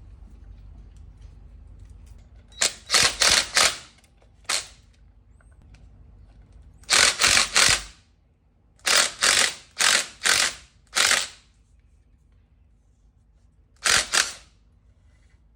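Power tool driving the starter's bolts in short, rattling bursts, in groups of two to five.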